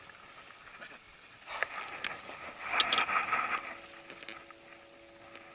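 Rustling and clattering of gear being handled on a bass boat's deck, with a couple of sharp clicks about three seconds in. A faint steady hum starts just before the end.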